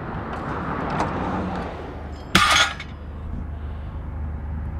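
Metal sink parts striking together: one sharp clink with a brief metallic ring about two and a half seconds in, over a steady low rumble.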